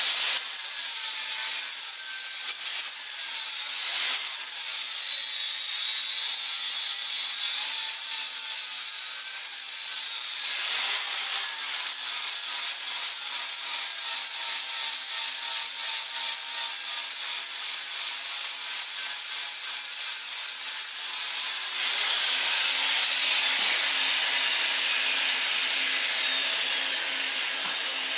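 Angle grinder grinding down weld on a steel railroad-rail anvil: a loud, continuous gritty whine whose pitch wavers as the disc is pressed into the metal, broken briefly a few times. Over the last few seconds the whine falls in pitch.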